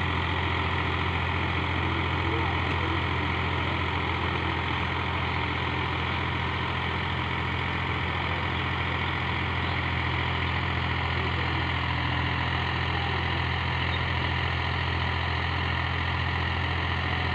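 Powertrac 430 tractor's diesel engine running steadily under load while it drives a 7-foot rotavator churning through the soil.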